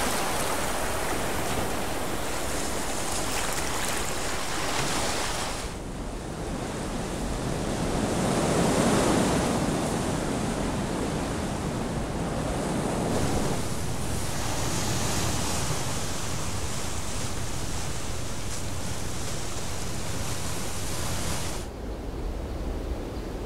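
Ocean surf: waves breaking and washing up a beach as a steady rush of noise that swells and eases. It turns duller twice, about six seconds in and again near the end.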